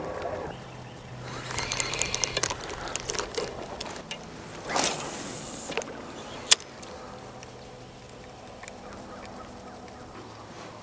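A spinning rod cast. Light reel clicks and rattles come first, then a loud swish with line rushing off the spool about five seconds in, and a sharp click of the bail snapping shut about a second later. A faint low hum runs underneath.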